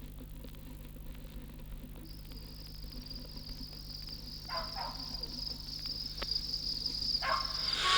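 Crickets trilling in a steady high chirr that begins about two seconds in, heard from a vinyl record over a constant low hum of surface noise.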